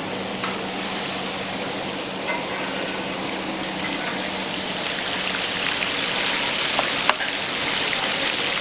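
Fish frying in hot oil: a steady sizzle that swells slightly, over a faint low hum.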